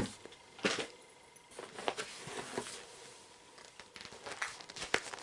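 Packaging and box contents being handled: intermittent rustling and crinkling with a few sharp clicks and taps.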